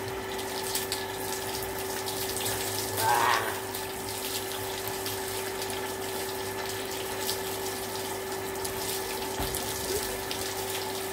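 Water gushing from a garden hose and splashing over a man's head, body and the ground, over a steady hum from the pump feeding the hose. The splashing grows briefly louder about three seconds in.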